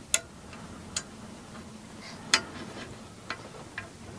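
A few sharp, separate clicks of small metal hardware being handled during 3D-printer kit assembly: nuts, washers and fittings knocking against each other and the aluminium frame. There are about five clicks, the loudest a little past halfway.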